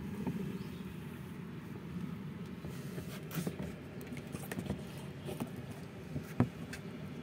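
Red-eared slider turtles moving about in a plastic tub of shallow water: scattered light clicks and taps, the loudest about six seconds in, over a steady low background rumble.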